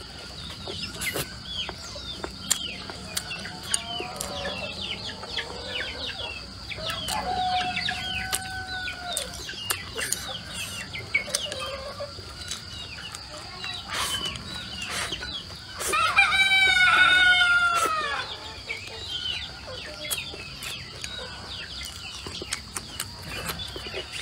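A rooster crows once about two-thirds of the way in, a long call lasting about two seconds and the loudest sound here, while chickens cluck in short calls throughout. Close-up clicks of eating with chopsticks run alongside.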